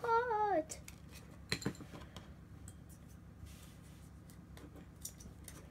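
Kinder Surprise chocolate egg being broken apart by hand over a ceramic bowl: small cracks and scattered clicks as pieces of the chocolate shell knock against the bowl. A child's voice hums a brief wavering note at the very start.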